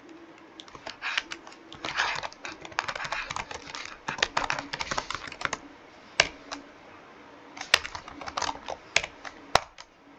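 Computer keyboard typing: quick irregular runs of key clicks, thinning out in the second half into a few louder single key strikes.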